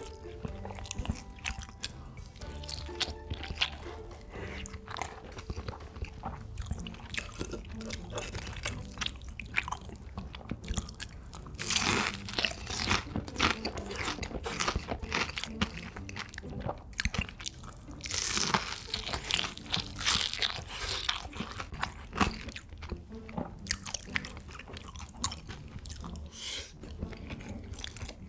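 Close-miked eating: repeated crunching bites and chewing of crisp food, loudest in two spells of hard crunching around the middle and two-thirds of the way in, over faint background music.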